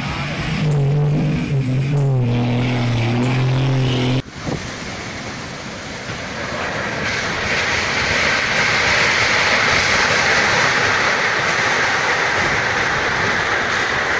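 About four seconds of music with low held notes that step in pitch, then a sudden cut to a steady dense hiss of heavy rain and wind.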